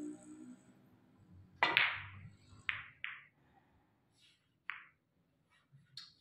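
Snooker balls clacking: one sharp, loud click as the cue ball is driven into a cluster of reds about one and a half seconds in, then a few softer clicks as the balls scatter.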